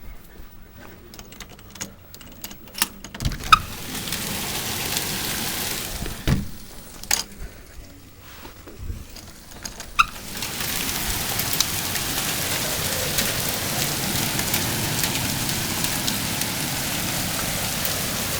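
Hailstorm with heavy rain: scattered sharp ticks and knocks of hailstones striking, then a steady hiss of hail and rain that swells about three seconds in, eases, and comes back louder and steady from about ten seconds on.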